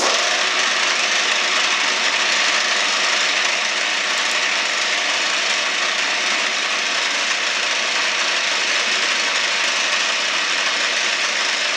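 Metal shaper's feed ratchet and pawl clattering, very loud, as on a machine whose ratchet is noisy in operation. The dense mechanical racket holds steady, then cuts in and out abruptly.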